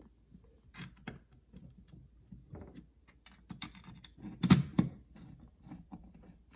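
Hand screwdriver driving screws through an ecobee thermostat's plastic backplate into the wall: scattered small clicks and scrapes of the driver and plastic, with one louder knock about four and a half seconds in.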